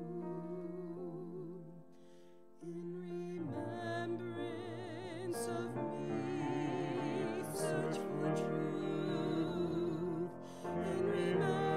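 A woman singing a slow solo with vibrato, accompanied by grand piano, a song during communion. The music drops away briefly about two seconds in, then resumes and builds.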